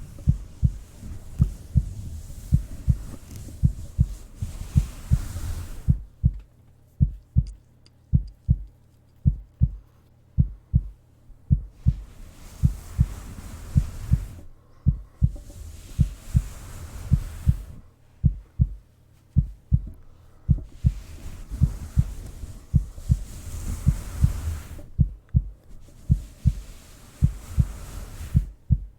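Heartbeat picked up close to the chest: steady, low, muffled double thumps (lub-dub) repeating evenly, with a soft hiss that swells and fades every few seconds.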